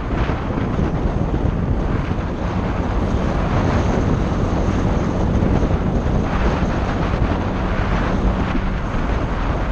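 Honda SH 125i scooter riding at steady street speed: its single-cylinder four-stroke engine runs with a steady low hum under heavy wind rush on the microphone.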